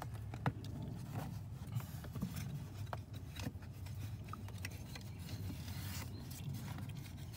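Handling noise: rustling and scraping with a few light clicks, over a steady low hum.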